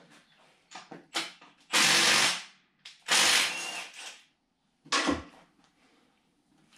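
A power tool running in two short loud bursts about a second apart, then a shorter burst a little later, during engine assembly work.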